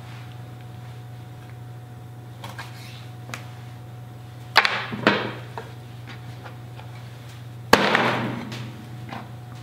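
A cleaver chopping a chicken wing off against a cutting board: one sharp chop with a trailing decay near the end, after two knocks on the board about halfway through.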